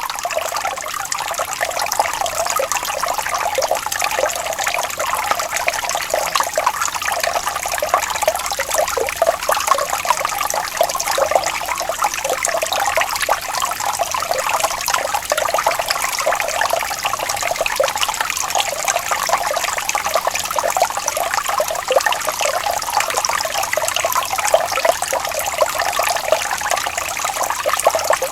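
Running water trickling and splashing steadily, a dense unbroken patter with little deep rumble.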